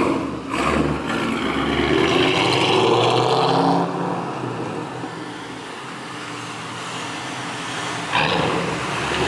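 A Ford Mustang GT's 3-valve V8 revving hard with a loud exhaust as the car pulls away, rising in pitch over the first few seconds. It eases off and fades as the car moves off, then picks up again with another burst of throttle near the end.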